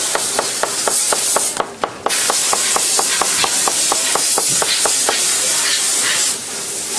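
Rapid, evenly spaced mechanical clicking, about five a second, fading out about five seconds in, under a loud hiss that drops out briefly near two seconds and stops near the end.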